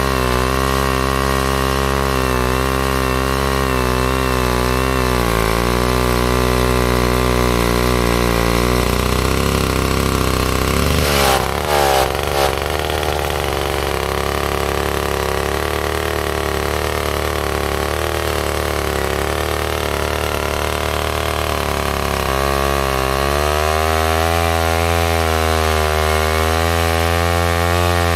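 Vintage McCulloch bow saw's two-stroke engine running under load as it cuts down through a log, its pitch wavering. About halfway through the engine note briefly rises and falls, and it shifts again a few seconds before the end.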